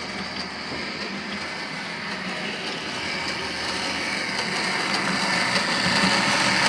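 Sound decoder in a model class 121/122 diesel railcar playing a diesel railcar's Leyland engine sound through its small speaker, running steadily and gradually getting louder.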